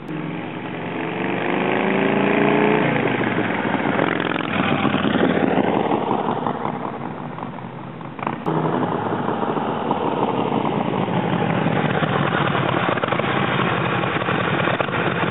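A 1972 Harley-Davidson Ironhead Sportster 1000 V-twin rides past, rising in pitch as it accelerates, then fading away. After an abrupt cut about eight seconds in, the same engine runs steadily up close.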